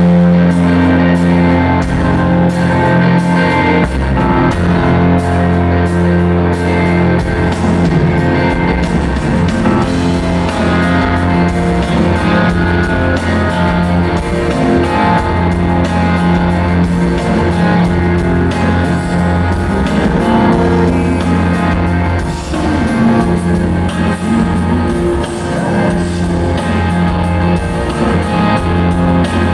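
Live rock band playing a song, with guitars and a drum kit and a steady cymbal beat early on.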